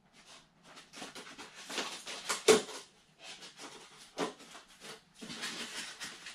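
Styrofoam packaging being handled: irregular scraping, rubbing and rustling of foam pieces, with one sharp knock about two and a half seconds in.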